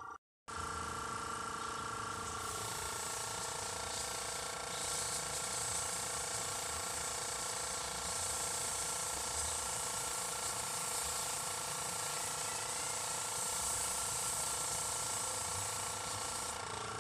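Airbrush spraying pink paint in a steady hiss that starts a couple of seconds in and stops near the end, over the constant hum of the small air compressor that feeds it.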